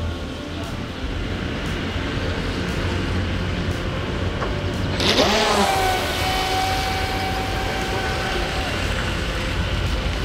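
Scale RC model speedboat running on the water under motor power, with a steady low rumble. About five seconds in its motor whine rises sharply and then holds a steady pitch for a few seconds.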